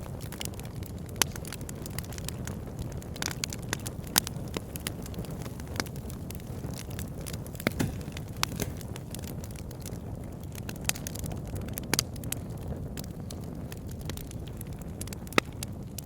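Wood fire burning in a fireplace: a steady low rumble of flames with irregular crackles and sharp pops, a few of them louder.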